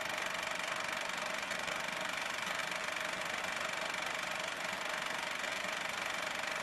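Film projector running: a steady, fast mechanical rattle with a constant hum.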